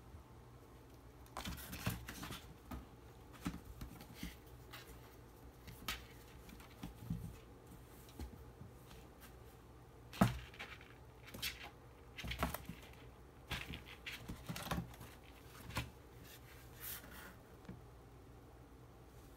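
Kittens' claws scratching and scrabbling on a cardboard box and the fabric inside it, as scattered short scrapes and knocks with one louder knock about halfway through.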